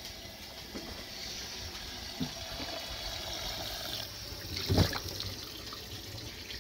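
Kitchen faucet running steadily, the stream splashing onto a raw turkey being rinsed in a stainless steel sink. A loud thud just before five seconds in.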